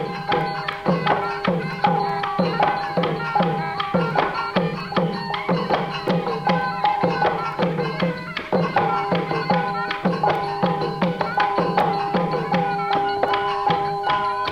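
Thai folk dance music: hand drums beat a quick, steady rhythm under a steady held tone.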